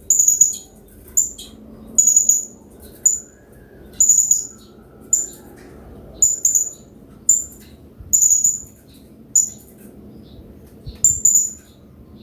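Blue-crowned hanging parrot (serindit) giving short, shrill, very high-pitched calls, about one a second, some in quick pairs, over a low steady sound of running water.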